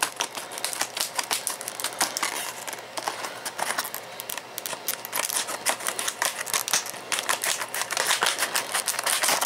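Small scissors snipping repeatedly through a stiff plastic clamshell package. A rapid, uneven run of sharp clicks and plastic crackling.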